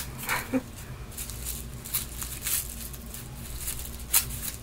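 Gift wrapping being pulled and torn off a small, tightly wrapped package, heard as short scattered crinkles and rips.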